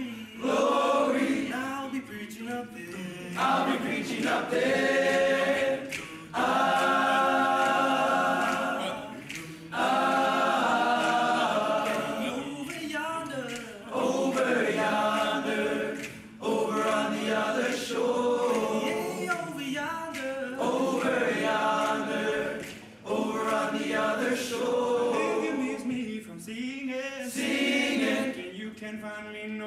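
Choir of teenage boys singing, in phrases of a few seconds each with short breaks between them.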